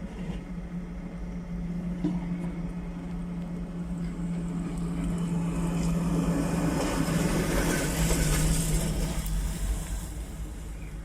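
Liebherr 910 wheel excavator's diesel engine and hydraulics running under load with a steady low hum. A rushing noise builds about six seconds in, peaks near eight seconds and then eases.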